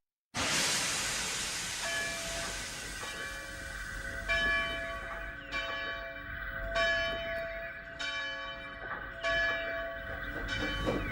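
A burst of steam hiss, then a steam locomotive's bell ringing, struck about every 1.2 seconds with a ringing tone that carries between strikes.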